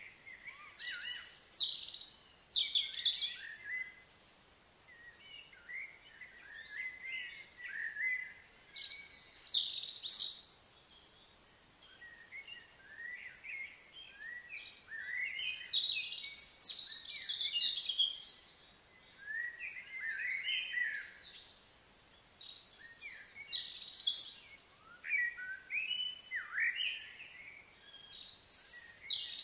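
Birdsong: quick, varied chirps and short phrases in bouts of a few seconds, with brief pauses between them.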